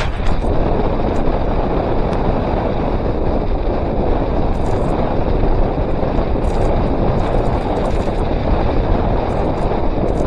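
Steady rush of wind buffeting the microphone on a fast bicycle descent at about 27 mph, mixed with the rolling noise of the wide tyres on asphalt.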